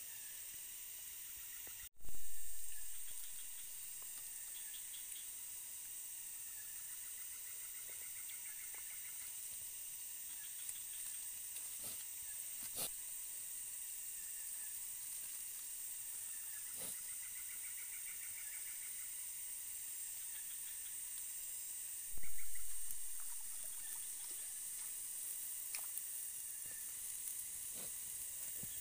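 Tropical forest insects, cicadas and crickets, making a steady high-pitched drone with pulsing chirping calls coming and going, and a few faint clicks. The sound cuts off abruptly about two seconds in and again about 22 seconds in, coming back louder each time.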